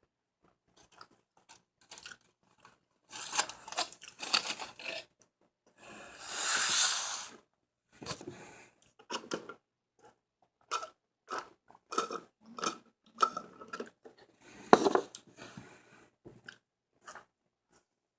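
Close-up chewing and mouth smacks of someone eating a burger, in irregular bites and clicks. There is one longer, louder hissing rustle about six seconds in.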